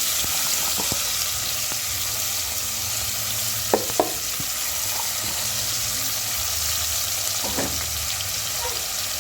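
Chopped onions frying in hot cooking oil in a pot, a steady sizzling hiss. Two sharp knocks come about four seconds in and another near the end.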